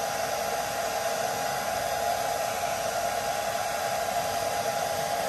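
Handheld hair dryer running steadily on one setting: an even rush of air with a steady pitched hum.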